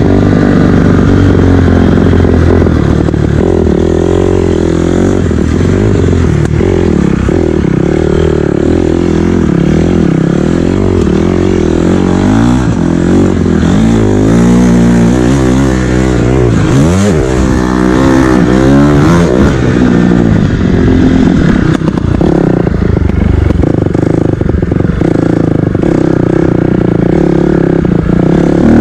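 KTM 250 dirt bike engine being ridden, revving up and falling back again and again as the throttle is worked, heard close up from the rider's seat.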